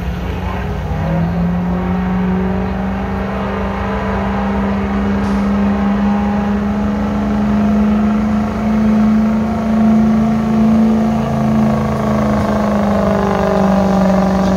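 Diesel pickup truck's engine held at high revs under full load while pulling a weight-transfer sled: a loud, steady drone that climbs a little in pitch in the first second, then holds.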